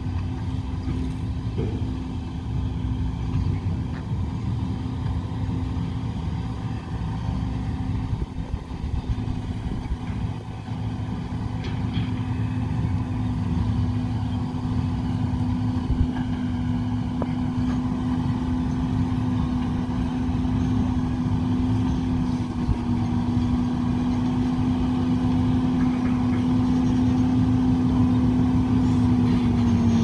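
Galion motor grader's diesel engine running at a steady pitch under load as the machine pushes loose dirt with its blade. It grows louder over the second half as the grader comes closer.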